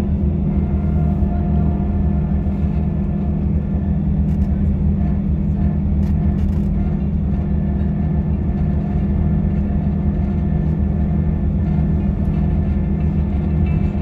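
Steady low drone of a bus's engine and tyres, heard from inside the cabin while cruising on a motorway.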